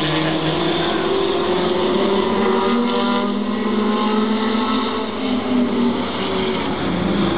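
Engines of a field of oval-track race cars running around the speedway, several engine notes overlapping and rising and falling in pitch.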